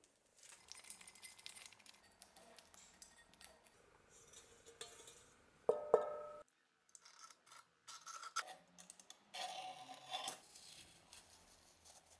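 Faint handling sounds of clear tape being worked onto a rusty cleaver blade and cut with a utility knife, with one ringing metal clink near the middle.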